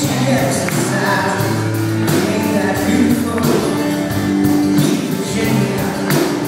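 Live rock band performing: a male lead vocal over strummed acoustic guitar, electric guitar and a steady drum beat, heard from the audience in a large hall.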